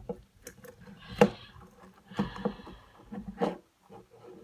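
Mixed slime being squished and worked, giving irregular squelches and pops. The sharpest pop comes about a second in.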